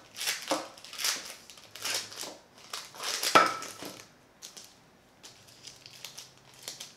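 Plastic candy bar wrapper crinkling and tearing as it is opened and pulled off a Butterfinger bar, in several rustling bursts with a sharp snap a little over three seconds in. Softer, scattered crinkles follow after about four seconds.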